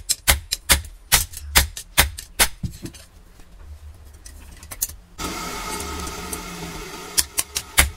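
Hand hammer blows on hot leaf-spring steel over a block anvil, about four a second, stopping about two and a half seconds in. After a pause with a few light taps, a steady rushing noise runs for about two seconds, and the hammering starts again near the end.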